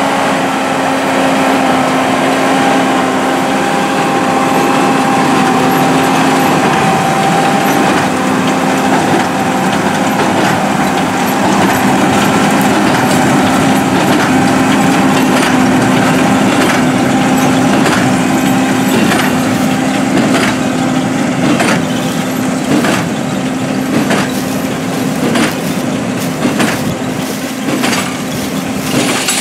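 John Deere 7280R tractor running under steady load while it drives a Massey Ferguson Hesston 2270XD large square baler through straw. The baler's working hum is there too, with sharp regular knocks about once a second from its plunger packing the straw. The knocks grow more distinct over the last ten seconds.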